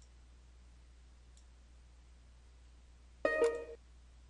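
A short, bright electronic chime with a plucked-string quality sounds once about three seconds in and rings out in about half a second: a new-mail notification as the bounced 'Undeliverable' message arrives in the inbox. A faint low hum lies underneath.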